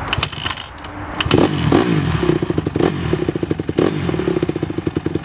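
Honda CRF150R dirt bike being kick-started: after some clatter of the kickstarter, the single-cylinder four-stroke engine catches about a second in. Its revs rise and fall as it fires up, then it settles into a steady run.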